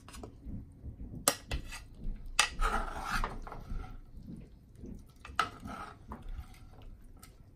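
Plastic slotted spoon scraping through sautéed kale in a nonstick skillet and knocking against the pan and a ceramic plate while serving, with a few sharp knocks among rougher scraping.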